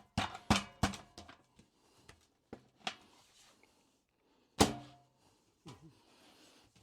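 Sheet-metal chimney liner pipe sections being handled: a quick run of knocks in the first second, a few lighter taps, then one loud clank with a short ring about four and a half seconds in.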